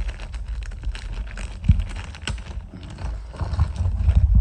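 Clear plastic parts bag crinkling and rustling in the hands, with small resin model pieces clicking against each other inside. A few dull low bumps from handling, the strongest near the end.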